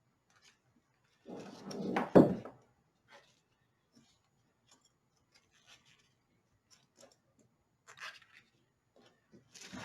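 Hand handling of robot chassis parts during hot-glue assembly. About two seconds in there is a short rubbing rustle with one sharp knock, then faint scattered ticks and clicks, and another brief rustle near the end.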